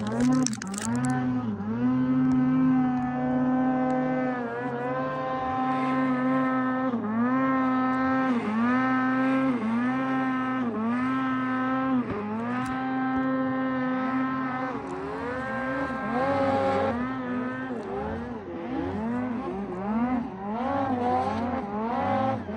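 Big-bore two-stroke snowmobile engine on a Ski-Doo XM sled revving hard. Its pitch dips and climbs back about once a second as the throttle is worked, with quicker, wider swings near the end.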